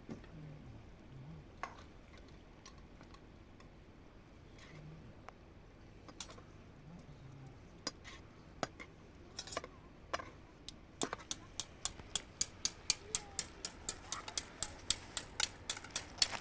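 Sharp clicks or taps, a few scattered at first, then from about eleven seconds in a steady run of about three to four taps a second that grows louder.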